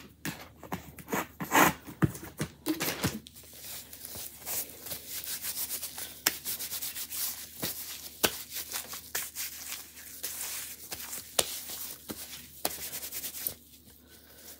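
Hands being wiped clean with a white wipe: continuous rubbing and scuffing, with scattered sharp clicks and taps of small items handled on the craft mat, busiest in the first few seconds and dying away near the end.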